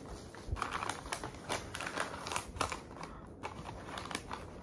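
Paper gift wrapping being handled and unwrapped, crinkling and crackling in irregular small clicks.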